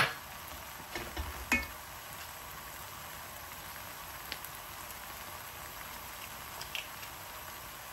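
Tomato and vegetable sauce sizzling steadily in an enamelled pan, with a couple of knocks of a wooden spatula against the pan about a second in.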